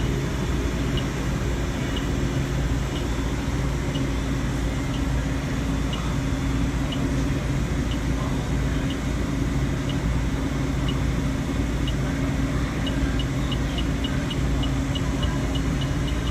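Fieldpiece SRL8 electronic refrigerant leak detector ticking, slowly at first and then faster and faster toward the end as it picks up refrigerant from a leaking evaporator coil. A steady low machine hum runs underneath.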